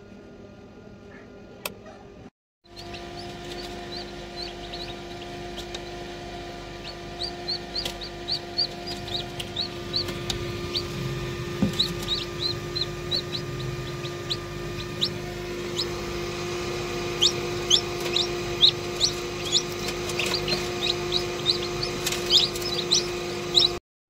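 Newly hatched Ayam Cemani chicks peeping: many short, high chirps that grow busier and louder as it goes on, over a steady machine hum. The sound breaks off briefly about two seconds in.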